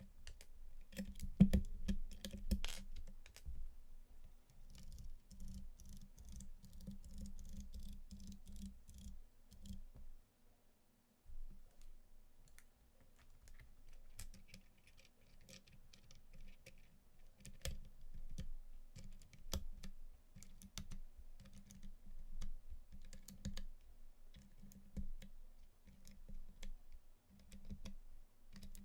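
Keys of an Anne Pro 2 mechanical keyboard being pressed in an irregular run of clicks, each with a soft low thud, with a short pause about ten seconds in.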